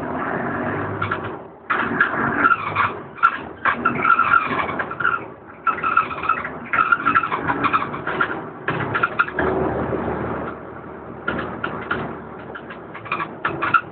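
Inside a DAF DB250LF double-decker bus under way: engine and drivetrain running, with a whine that rises and fades in stretches as the bus pulls and eases off, and frequent rattles from the body and fittings.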